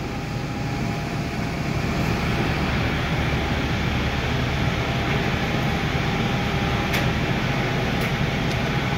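Steady whooshing hum of a large fan or blower running, with a low rumble and a faint steady tone, and a couple of faint clicks late on.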